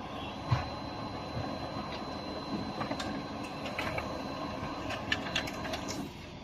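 Brother HL-L2320D laser printer running a test print and feeding the page out to the top tray: a steady mechanical whir with a faint high whine and scattered clicks. It stops about six seconds in. There is a sharp thump about half a second in.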